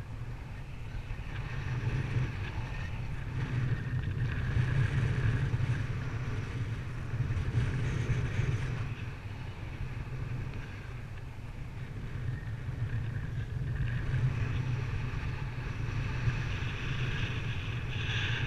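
Wind rushing over the microphone in flight: a steady low rumble that swells and eases in gusts.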